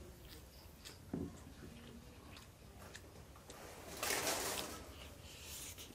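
Eating sounds of a man eating biryani: faint scattered clicks and small wet noises, with a louder wet, splashy rush about four seconds in.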